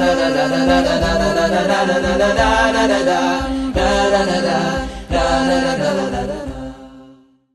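Vocal music: an a cappella chant of several voices over a held drone, fading out near the end.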